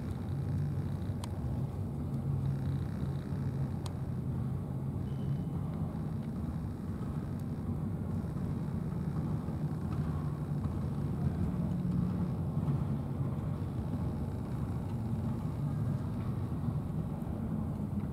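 Steady low rumble of motor traffic, with a faint hum running through it and no clear change.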